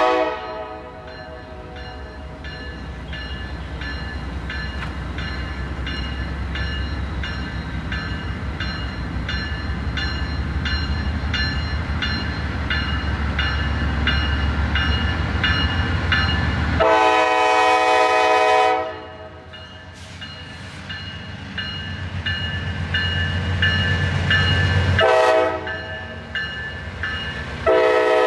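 Norfolk Southern GE Dash 9-40CW diesel locomotive approaching with its engine running and its bell ringing steadily, about two strokes a second. Its air horn, the loudest sound, gives a long blast about 17 s in, a short one about 25 s in and another long one near the end, completing the long-long-short-long grade-crossing warning.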